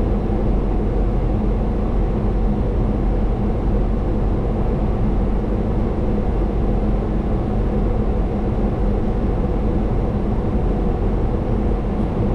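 Steady flight-deck noise of a Boeing 737-800 on approach: a constant rush of air past the cockpit over the low hum of the engines, with no change through the stretch.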